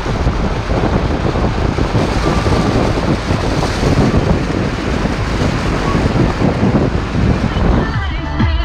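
Car's front tyre ploughing through a flooded dirt road, water splashing and hissing under heavy wind buffeting on the microphone. About eight seconds in, music cuts in.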